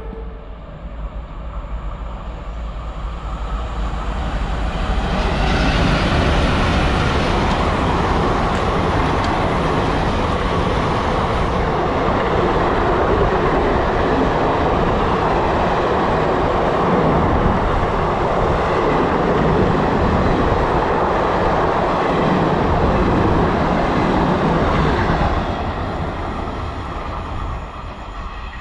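Passenger train of blue coaches running through the station past the platform: a steady rushing rumble of wheels on rails. It builds over the first few seconds, holds loud, and fades after about 25 seconds as the last coach draws away.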